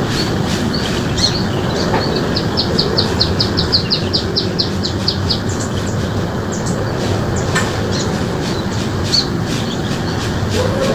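Small birds chirping, including one bird's rapid series of about twenty short high notes, some six a second, lasting about three seconds. Underneath runs a loud, steady, even noise, like wind or distant traffic.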